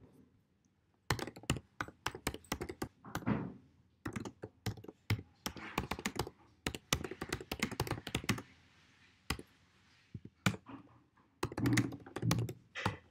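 Typing on a computer keyboard while entering git commands: quick runs of key clicks with a few heavier thunks. The typing pauses for about two seconds a little past halfway, then starts again.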